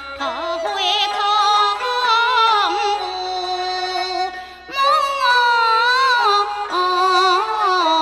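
Woman singing a Teochew opera aria: long, ornamented held notes on an 'ah' vocalise with wide vibrato. A brief pause for breath comes about four and a half seconds in, and then a new phrase begins.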